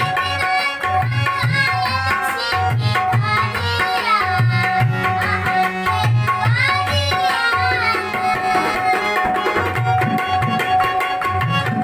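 A boy's voice singing a Maithili nachari, a devotional song to Shiva, over held harmonium chords and a steady dholak rhythm. The voice drops out near the end, leaving harmonium and drum playing on.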